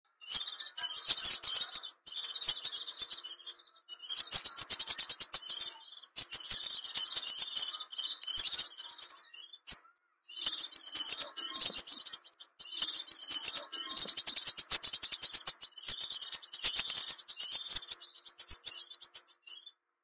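Crimson sunbird (sepah raja) singing: high-pitched, rapid trilling phrases of about two seconds each, separated by brief pauses.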